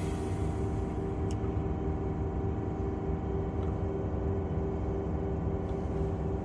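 Diesel-electric locomotive engine idling, heard from inside the cab as a steady drone with a low hum. A hiss of air from the brakes releasing dies away in the first second.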